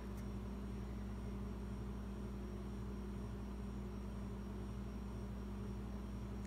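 Steady low electrical hum with a faint even hiss: constant background noise, with no distinct sounds standing out.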